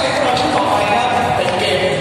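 Music mixed with a voice, echoing in a large hall.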